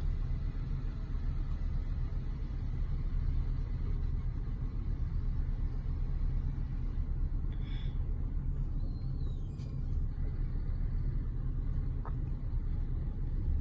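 An engine idling steadily: a low, even rumble, muffled through a closed car window.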